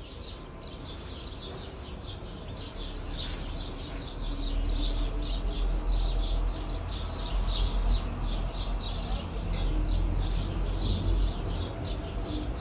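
A bird chirping over and over, about three short high chirps a second, over a low rumble that grows louder from about four seconds in.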